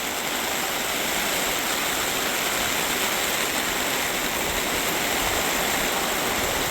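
Heavy rain pouring down, a dense steady hiss that builds slightly in the first second.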